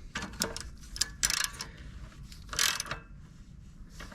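Socket ratchet clicking in three short runs while the chain adjustment bolts are tightened.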